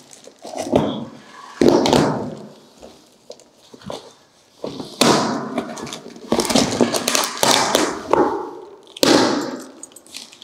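Large cardboard box being opened by hand: its flaps and packing scraped, pulled and rustled in several noisy bursts, with taps and thumps against the cardboard.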